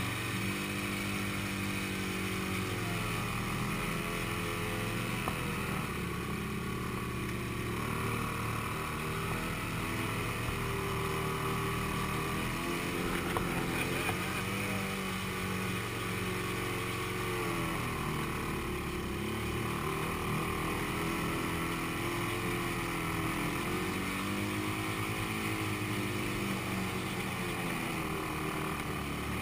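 ATV engine running, heard from on board as the quad rides through a muddy, water-filled track, its revs rising and falling as the throttle changes.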